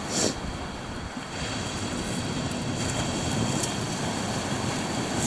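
Sea surf washing on a shingle beach as a steady rushing hiss, with wind on the microphone.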